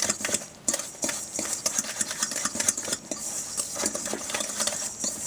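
A utensil stirring a dry sugar-and-spice mixture in a stainless steel mixing bowl, a quick run of scraping clicks against the metal.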